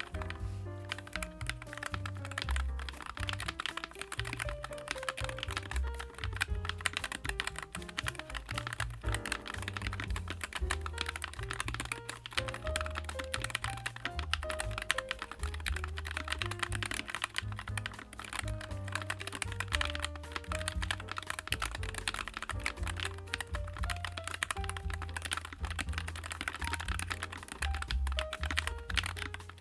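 Continuous typing on a NuPhy Air96 low-profile mechanical keyboard: a dense, unbroken run of key clicks, over background music with a bass line.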